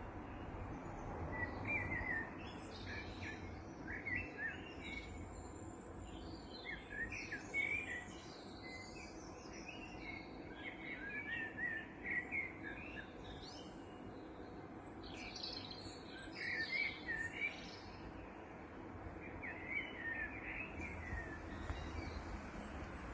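Birds chirping and calling in short, quick clusters of high notes, with a steady low background noise underneath.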